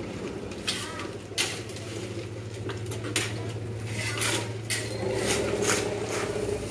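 Steel shovels scraping and scooping loose asphalt mix off a paved road, about eight sharp gritty metallic scrapes and clinks, over a steady low hum.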